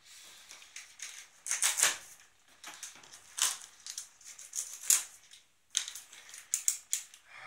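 Plastic packing straps being pulled off a cardboard box, scraping and rasping against the cardboard in several short bursts, with a quick cluster of them near the end.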